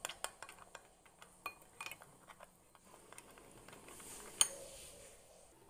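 Faint clicks and scrapes of a spoon against a bowl as powdered sugar is spooned and mixed into a cocoa mixture, with one sharper clink about four and a half seconds in.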